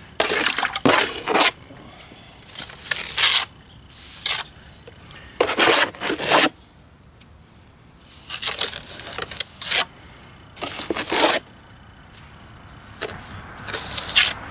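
Hand trowel scraping and spreading plaster over a concrete block foundation, in repeated strokes of about half a second to a second and a half each.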